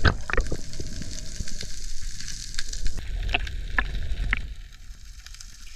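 Underwater reef crackle: a dense, fine snapping from shrimp on the rocky reef, heard through the camera housing, with scattered sharper clicks, a few louder ones in the first half-second. It gets quieter near the end.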